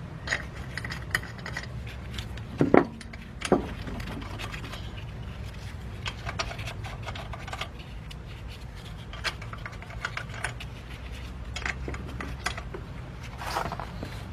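Scattered metal clicks, rattles and scrapes from a car wheel and its lug nuts being fitted by hand onto the hub, with two louder knocks about three seconds in, over a steady low hum.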